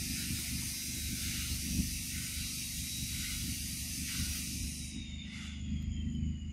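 Forest insects droning as a steady high hiss that stops abruptly about five seconds in, leaving a faint whistle that falls slowly in pitch, over a low rumble.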